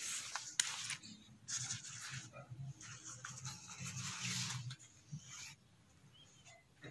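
Lightweight nylon tracksuit jacket rustling and swishing as it is handled and turned over, in a few bursts of crinkly rubbing that die down about five seconds in.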